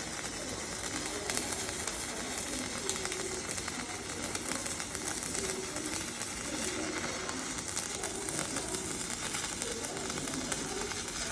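Electric welding arc crackling and hissing steadily, with a dense run of small pops.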